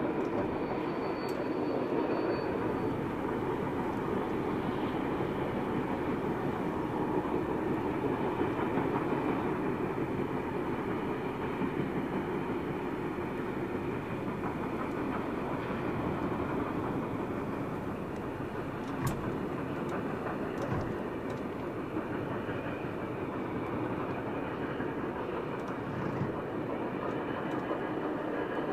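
NSW 36 class steam locomotive 3642 hauling a passenger train along the line, a steady continuous running noise of the locomotive and carriages on the rails.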